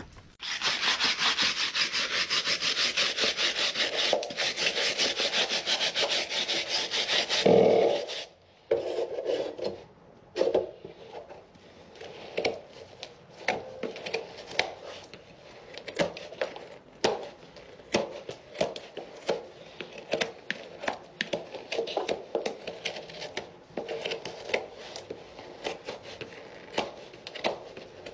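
Farrier's rasp filing a Shire horse's hoof. It begins with several seconds of fast, continuous rasping, then breaks into separate strokes, about one or two a second.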